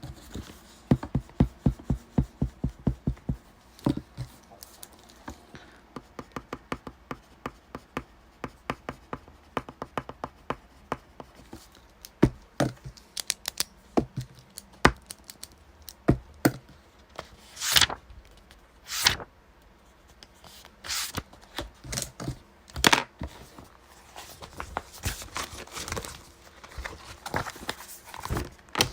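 Desk study sounds: computer keyboard typing in quick runs of clicks, giving way after the middle to scattered longer swishes of paper being handled.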